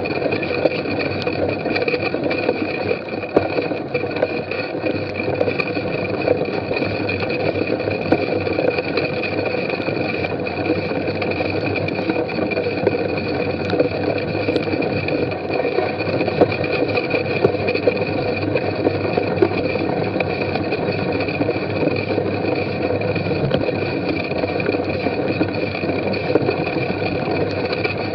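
Steady rumble and rattle of a mountain bike being ridden over a muddy dirt course, heard through a mounted action camera: tyre, drivetrain and wind noise with scattered short knocks from bumps.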